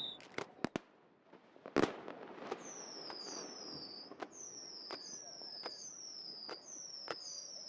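Fireworks: a few sharp pops and a loud bang about two seconds in, then a steady run of launches, each a pop followed by a high whistle that falls in pitch, repeating a little faster than once a second.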